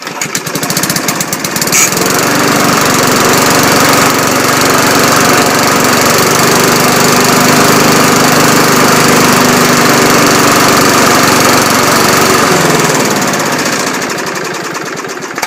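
Briggs & Stratton 3.5 HP lawn mower engine pull-started and catching at once, then running steadily with its governor spring stretched to bring the revs down to a safer RPM. Near the end the engine speed and loudness drop.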